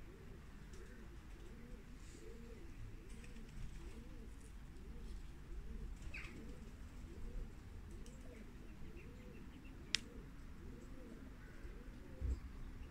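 Several racing pigeons cooing, their low rising-and-falling coos repeating and overlapping. A single sharp click about ten seconds in.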